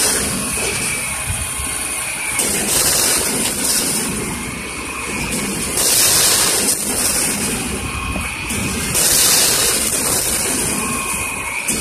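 McNeilus front-loader garbage truck running its lift hydraulics while a container is held overhead to empty. The engine rises in surges about every three seconds, each with a loud hiss.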